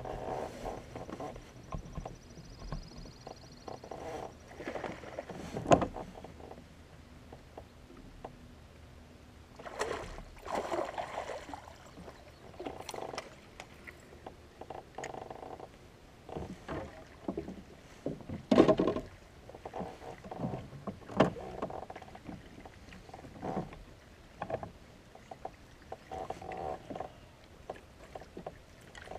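Handling sounds of fishing from a plastic kayak: a fishing reel being cranked in short stretches, with rustling and several sharp knocks on the kayak, the loudest about 19 seconds in.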